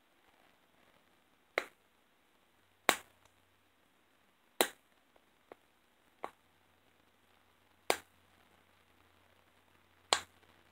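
Plastic cap of a squeeze bottle of white glue clicking sharply about six times, one to two seconds apart, as fingers pick and pry at it to open it.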